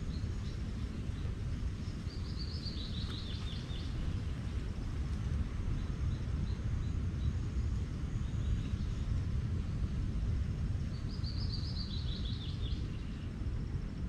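A bird sings two phrases of quick notes stepping down in pitch, a couple of seconds in and again near the end, over a steady low rumble.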